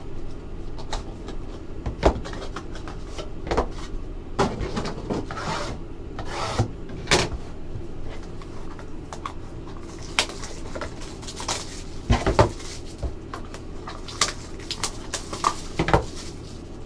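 Cardboard trading-card boxes and cards being handled on a table: packaging rustling and rubbing, with scattered sharp knocks and taps as boxes are opened and set down.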